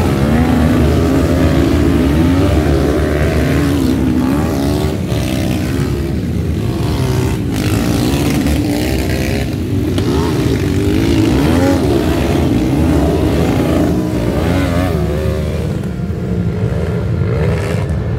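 Dirt bike engines on a motocross track, revving up and down over and over as the riders work the throttle, the pitch rising and falling continuously.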